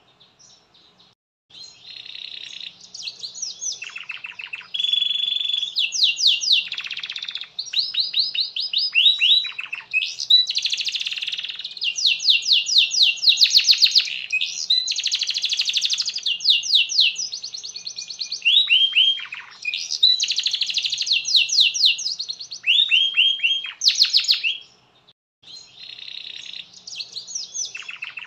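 Domestic canary singing a long song of fast trills and rolls, each phrase a rapid run of repeated high notes. It starts after a second's silence and breaks off briefly about three seconds before the end.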